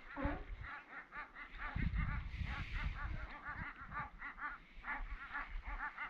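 A chorus of many animals calling over and over, short nasal calls that rise and fall, several a second and overlapping, with wind rumbling on the microphone about two seconds in.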